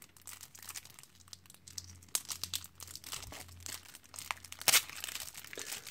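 Plastic shrink-wrap on a deck of game cards crinkling and tearing as it is handled and peeled off: scattered sharp crackles, loudest about two seconds in and again near five seconds.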